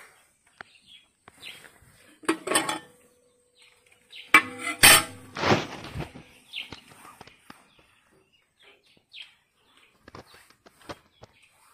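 Bursts of clattering knocks, loudest a few seconds in, followed by scattered light clicks and brief faint chirps.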